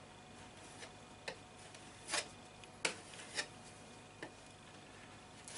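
Sparse, irregular light clicks and short scrapes, about seven in all, from tools being handled while filling holes in a wall.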